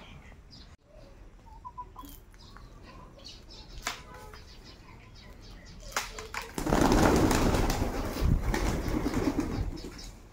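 Pigeons' wings flapping in a loud flurry lasting about three seconds, starting a little past the middle. Before it, a few faint bird calls and small clicks.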